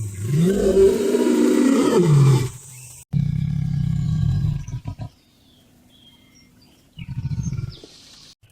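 Tiger roaring: a long roar that rises and then falls in pitch over about two seconds, followed by a deeper, rumbling roar and, near the end, a short pulsing growl.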